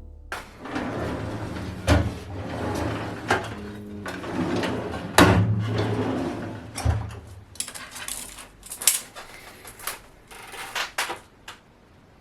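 Stainless steel drawers of a tool cart being slid and handled, a sliding scrape with several sharp knocks and a brief low rumble midway.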